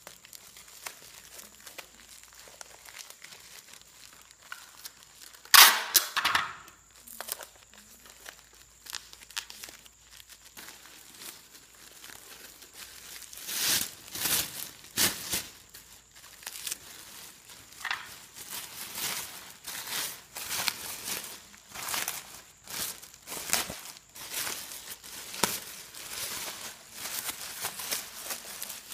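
Bubble wrap and plastic crinkling and crackling as a parcel is wrapped by hand, in irregular bursts that come more often in the second half.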